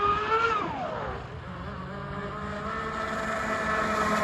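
Large RC racing catamaran's electric brushless motors whining under power. The whine rises, drops steeply about half a second in, then climbs back and holds high, over a hiss.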